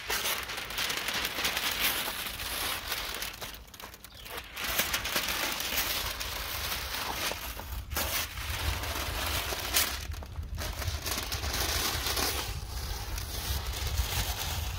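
Masking paper and tape being peeled off painted bus window frames and crumpled by hand: a run of tearing, crinkling paper broken by a few short pauses.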